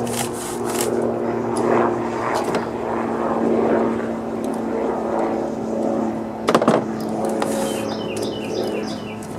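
A steady engine hum with two constant tones, and a sharp clack about six and a half seconds in.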